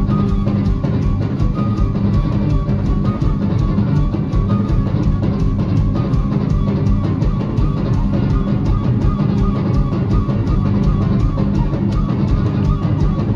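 Live band playing through a festival PA: a transverse flute melody over electric guitar and a drum kit keeping a steady beat.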